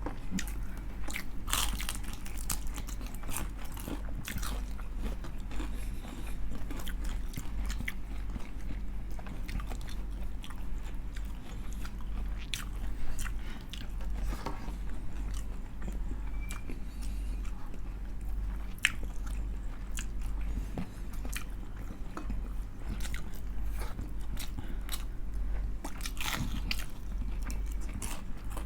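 Close-miked crunching and chewing of deep-fried crispy chicken skin, many irregular crisp bites and chews, over a steady low hum.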